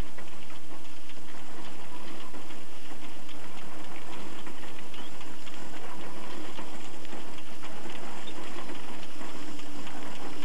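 Threshing machine with its attached straw baler running, the baler pressing straw into bales: a steady hum over a fast, even mechanical clatter.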